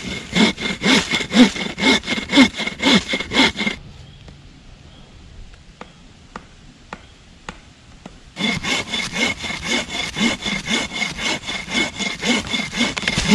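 Wooden-frame buck saw cutting through a log in quick back-and-forth strokes, with a steady high ringing note under the strokes. The sawing stops for about four seconds in the middle, leaving only a few faint ticks, then starts again.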